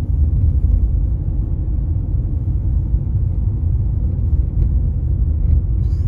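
Car driving along a road, heard from inside the cabin: a steady low rumble of engine and tyres.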